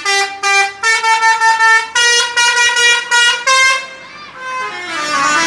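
Indonesian bus telolet horn, a multi-tone air horn, playing a quick melody of short pulsed notes that jump between pitches and stop about four seconds in. Near the end a falling tone and a jumble of voices follow.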